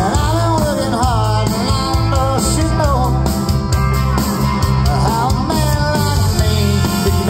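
Live country rock band playing through a PA: electric guitars, bass and drums, with a man singing lead vocals that come in right at the start.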